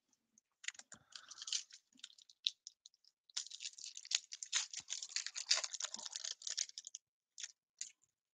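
Foil trading-card pack wrapper being torn open and crinkled in the hands: a burst of crinkling about a second in, then a longer stretch from about three to seven seconds, and two short crinkles near the end.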